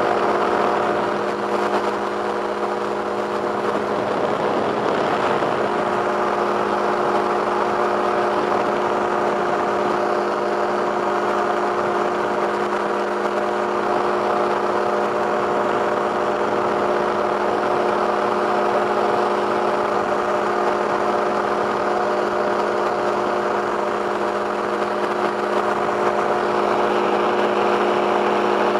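Two-stroke microlight engine running steadily in flight, a constant drone over a rushing hiss.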